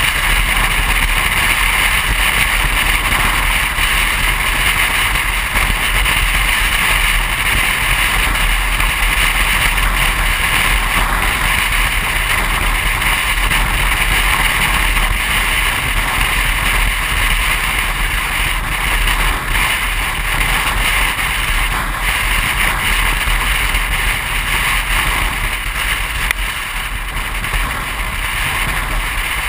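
Steady wind and road noise buffeting a camera mounted on the hood of a moving car, a constant rushing with no engine note standing out, easing slightly over the last few seconds.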